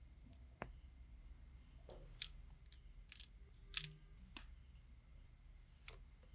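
Lego Technic plastic parts clicking as they are handled and fitted together: gears slid onto axles and axles pushed through a beam. A handful of short, sharp clicks come separately, with pauses between.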